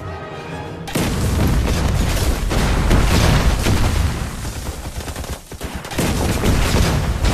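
Battle sound effects: dense rifle and machine-gun fire mixed with booms. It breaks out loudly about a second in, drops away briefly after five seconds, then resumes.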